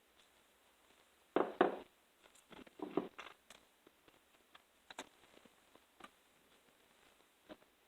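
Small handling noises from working on a hand ratchet's parts: two brief rustling scrapes about a second and a half in and about three seconds in, then a few scattered light clicks.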